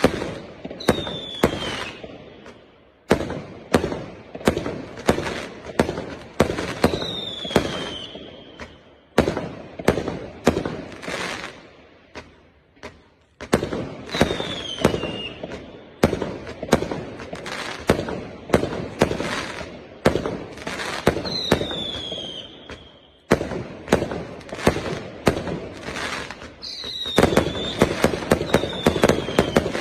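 A 399-shot, 0.8-inch firework cake firing, rapid launches and bursts coming in volleys separated by brief pauses, with a falling whistle every several seconds.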